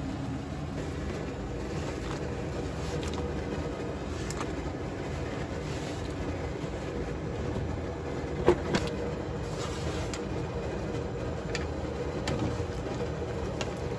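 Water at a rolling boil in a wide pan on a gas stove, a steady bubbling rumble, with small splashes and clinks as dumplings are dropped in and stirred with a spatula; one sharper knock about eight and a half seconds in.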